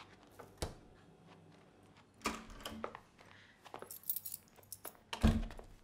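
Keys jangling and clicking as a wooden front door is unlocked and opened, with scattered clicks and rattles and a heavy door thump about five seconds in.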